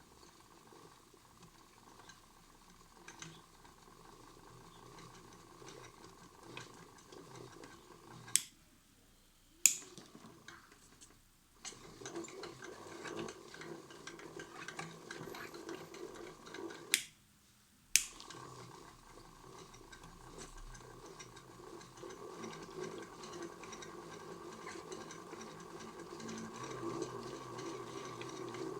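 Small electric motor of a modified toy washing machine running its drum with a steady hum, stopping twice with a sharp click before and after each short pause, then running on and getting a little louder near the end.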